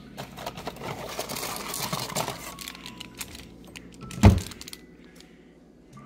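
Hands rummaging through small boxes and paper sachets in a medicine cabinet, with rustling and quick clicks, then one loud knock about four seconds in.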